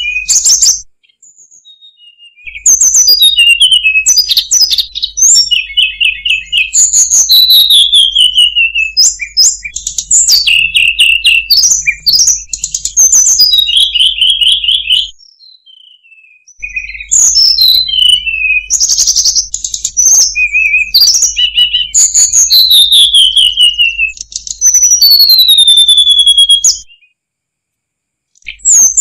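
Hill blue flycatcher song: bouts of quick, sweet whistled phrases, falling whistles and short trills, with brief pauses about a second in, around halfway and near the end, over a low hum. It is a lure recording meant to set caged birds of the same species singing.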